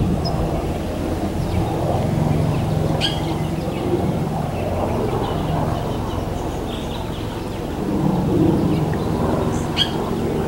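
Airplane passing overhead, a steady low rumble with a faint hum that swells a little about eight seconds in. A few short, high bird chirps break through it, about three seconds in and again near the end.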